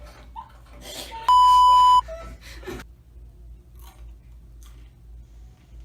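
A single loud, steady electronic beep lasting under a second, a little over a second in, like an edit or censor bleep laid over the sound track.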